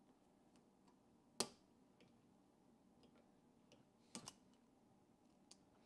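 Near silence broken by a few sharp metal clicks as circlip pliers work a circlip out of the bore of a clutch master cylinder: one click about a second and a half in, then a quick pair around four seconds in.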